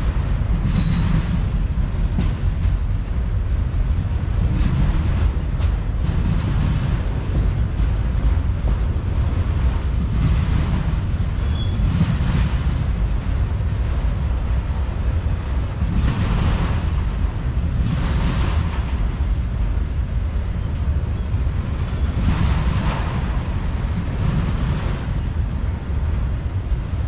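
Autorack freight cars rolling past close by: a steady rumble of steel wheels on rail, with a swell of wheel noise every couple of seconds as the cars' trucks go by and a few brief high squeaks from the wheels.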